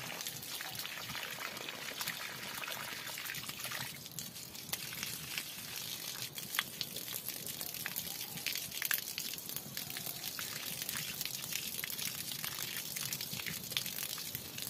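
Water pouring from the end of a plastic hose onto wet mud and a puddle: a steady splashing trickle with many small crackling splashes.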